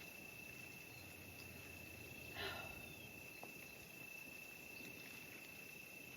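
Quiet open-air background with a faint, steady high-pitched tone that never breaks, and a brief soft rustle about two and a half seconds in.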